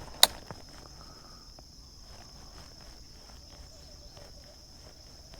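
Insects droning, a steady high thin tone, with one sharp loud click just after the start and faint scattered ticks after it.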